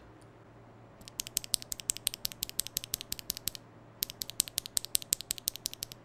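A single stock, unlubricated Akko Starfish mechanical keyboard switch pressed and released rapidly between fingers close to the microphone. It gives quick, sharp clacks in two runs, starting about a second in, with a short pause about halfway.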